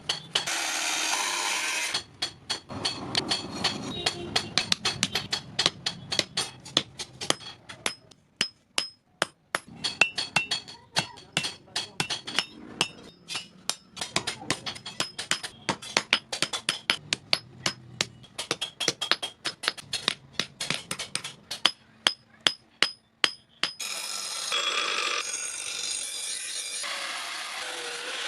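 Hammer striking hot steel on an anvil while forging a knife blade: rapid blows, a few a second with short pauses, each with a metallic ring. A steady rasping noise comes before the hammering and again near the end.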